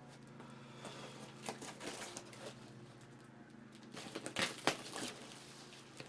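A cardboard shipping box being opened and its packing handled: scattered rustling and scraping, with a cluster of louder crackles and knocks about four to five seconds in, over a steady low hum.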